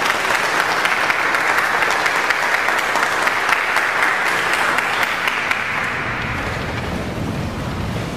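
Audience applauding, the clapping fading out about six seconds in.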